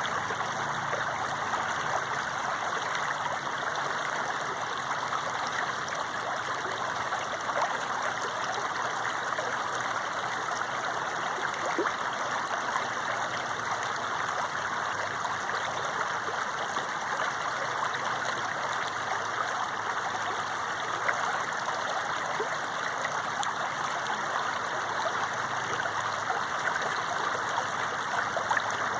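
Running water flowing steadily, an even rushing with no breaks or pauses.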